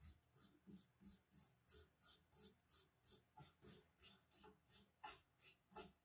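Soft, even back-and-forth hand scraping on the rusty metal of an old coffee grinder, about three strokes a second, the steady work of brushing or filing off rust.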